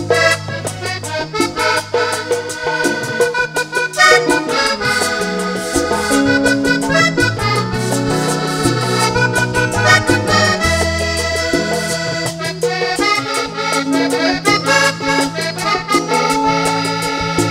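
Vallenato music: a Hohner button accordion plays a fast instrumental passage with a bass line underneath and steady percussion ticking along.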